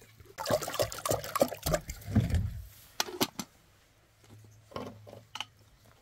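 Water poured and splashing for about two seconds, followed by a few sharp knocks from a jug and kettle being handled.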